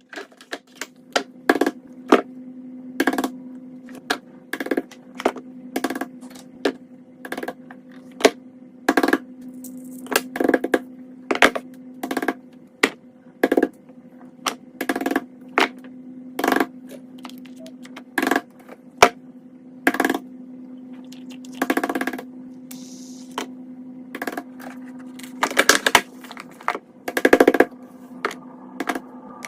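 Fidget toys being pressed and popped: a run of sharp, irregular pops and clicks, roughly one or two a second, over a steady low hum.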